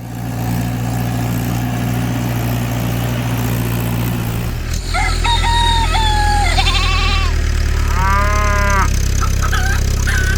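An engine running steadily, growing louder about five seconds in, while several farm-animal calls sound over it, the last a single drawn-out wavering call near the end.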